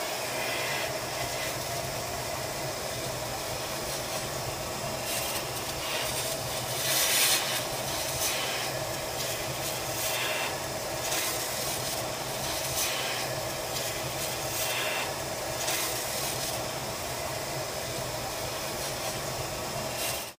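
CNC milling tool cutting an aluminium plate: a steady machine hiss and hum, with several brief louder bursts of hissing cutting noise, the loudest about seven seconds in.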